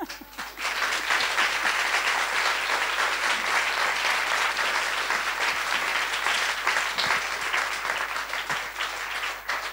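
Audience applauding at the close of a talk: dense, steady clapping that begins about half a second in and thins out near the end.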